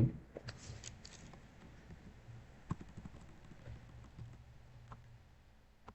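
Faint computer keyboard typing: a few scattered keystrokes, soft and irregular, over low background hum.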